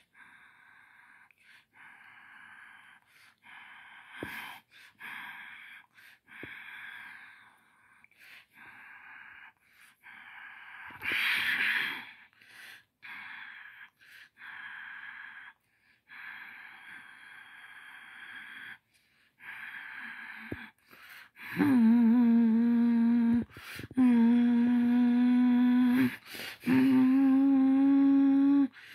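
A person's breathy, whispery noises come in short bits, then give way about two-thirds of the way through to loud, steady humming. The humming is held in long notes and steps up in pitch after short breaks.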